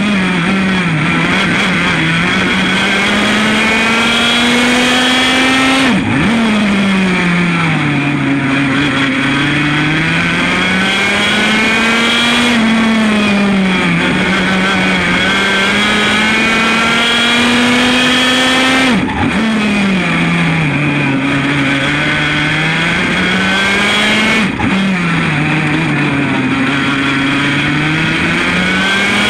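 100 cc Formula A two-stroke kart engine running hard on track. Its pitch climbs and falls in long sweeps, with sudden short drops a few times where the throttle is lifted.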